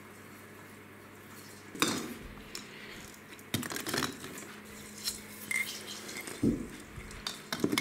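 Christmas tree baubles clinking and knocking against each other as they are put into a cardboard box full of ornaments: a few separate sharp clinks, about a second or two apart.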